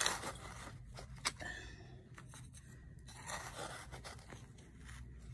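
Hand trowel digging in garden soil: gritty scrapes and scratches of dirt, loudest at the start, with a sharp click about a second in and another longer scrape past the middle.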